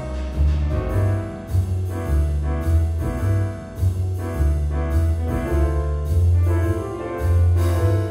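Instrumental background music with a prominent bass line of held low notes changing every half second or so.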